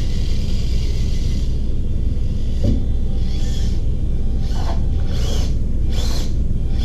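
A small-scale RC crawler's electric motor and drivetrain whirring steadily as it strains up a very steep incline of about 52 degrees. Several short, higher bursts come from about three seconds in, as the tyres scrabble for grip.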